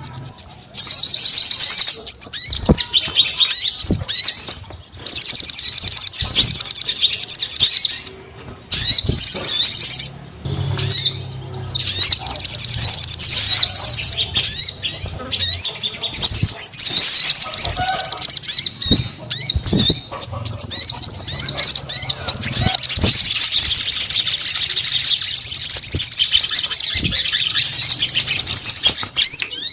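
Sogon songbird singing vigorously: long runs of rapid, high-pitched twittering and trills with short pauses, and a few dull thumps in between.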